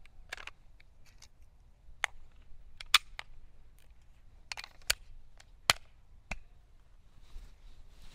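Several sharp clicks and clacks from a SIG P320 Spectre Comp pistol being worked by hand, such as racking the slide and handling the magazine while clearing a jam. The two loudest come about three seconds and six seconds in.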